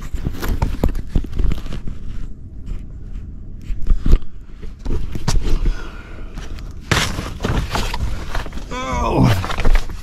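A person crawling over plastic vapour-barrier sheeting in a crawlspace: irregular crinkling and rustling of the plastic with knocks and thuds of knees and hands. Near the end there is a short pitched sound that falls steeply.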